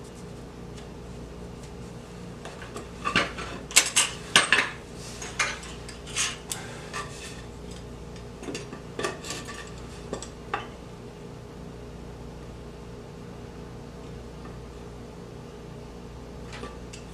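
Clinks and taps of a metal measuring tool being handled and set against a glued-up wooden board while its thickness is checked. The sharp knocks cluster between about three and five seconds in, come scattered until about eleven seconds, and sit over a steady low hum.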